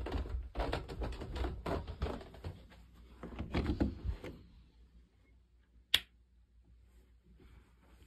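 Irregular footsteps and knocks going down a carpeted staircase, then a single sharp click of a doorknob latch about six seconds in.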